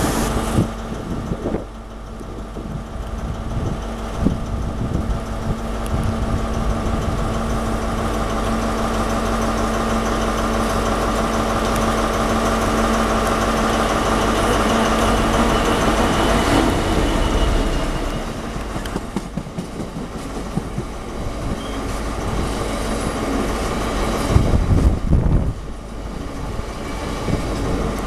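A Freightliner Class 66 diesel locomotive's EMD two-stroke V12 engine drones steadily and grows louder as it approaches and passes, then fades. A long rake of freight hopper wagons follows, rolling past with the clickety-clack of wheels over rail joints and a louder rattle near the end.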